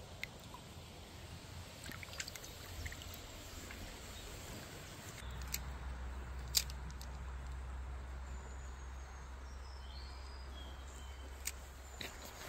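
Shallow creek water trickling, with a few sharp clicks from handling a spinning rod and reel, the loudest about halfway through. A low rumble comes in around the middle, and a bird chirps a few times in the second half.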